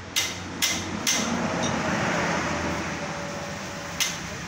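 Sharp knocks, three about half a second apart near the start and one more near the end, over a rush of noise that swells and fades in the middle.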